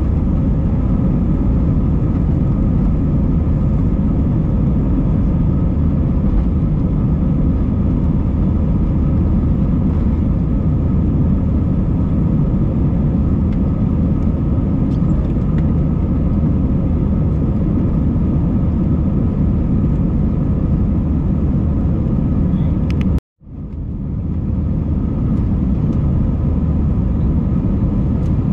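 Airbus A320 cabin noise in the climb after takeoff: a steady low rumble of jet engines and rushing air. About three-quarters of the way through it cuts out abruptly and fades back in over about a second.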